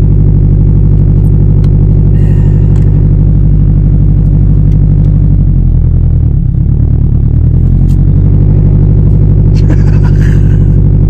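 Drift car's four-cylinder engine idling, heard from inside the cabin; about halfway through the revs sag briefly and then pick back up.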